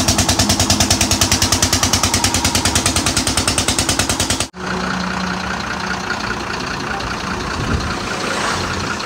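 A tyre shop's air compressor running hard with a fast, even chugging, about a dozen beats a second, that cuts off abruptly about four and a half seconds in. A steadier engine idle with a low hum follows.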